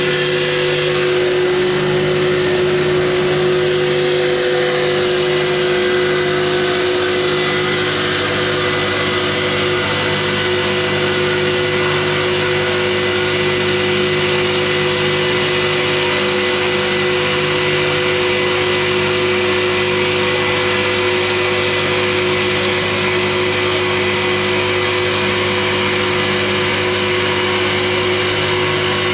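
3015S CNC stone polishing machine running steadily: an even motor hum with a steady whine that does not change.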